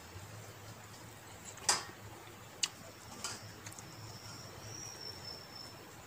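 Close eating sounds as rice and pork are eaten by hand from a plate: three short sharp clicks and smacks of fingers and mouth, the loudest under two seconds in, over a low steady hum. A thin, steady high whistling tone enters about halfway through.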